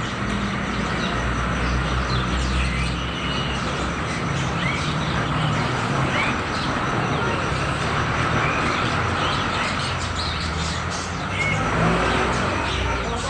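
Caged songbirds chirping in many short, rising calls over a steady low rumble of road traffic.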